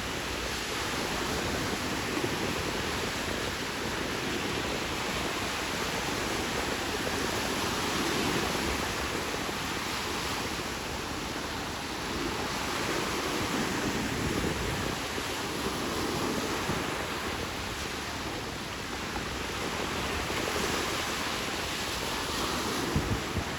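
Sea surf washing onto a beach: a steady rush of waves that swells and eases every few seconds.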